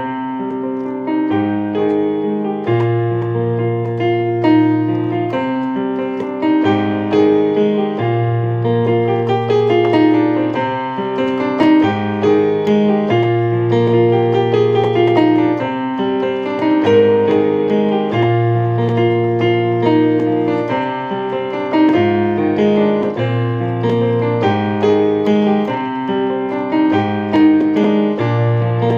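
Solo piano piece played on an electronic keyboard: flowing broken chords over low bass notes held for a couple of seconds each. It comes in suddenly, much louder than the quiet passage before it.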